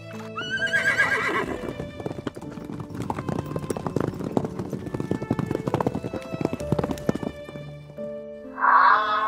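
A herd of horses galloping, their hooves drumming fast and irregularly on the ground, with a horse whinnying in the first second or so. Background music with held notes plays underneath and grows louder near the end.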